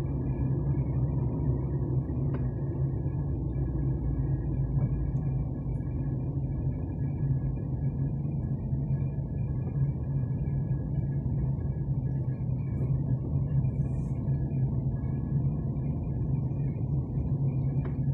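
A tram rolling slowly past at close range: a steady low rumble and hum, with a faint high whine above it.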